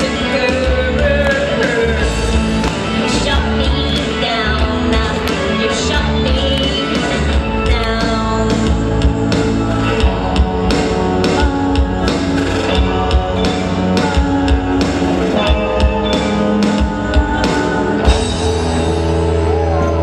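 Live rock band playing: a woman singing lead over electric guitars, bass and a steady beat. The singing is strongest in the first half, and the guitars and beat carry on as she stops singing.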